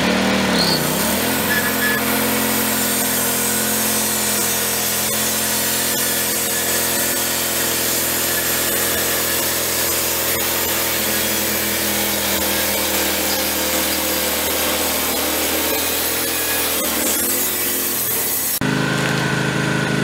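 Wood-Mizer LT15 sawmill's engine and band blade sawing steadily through a hardwood log with a 4-degree blade; the engine's pitch sags briefly about a second in as the blade bites. Near the end it changes to the engine running without cutting.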